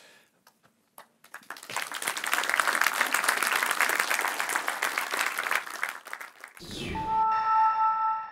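Audience applauding for about five seconds, then dying away. Near the end a short musical sting, with a low hit and a few held tones, plays with the company logo.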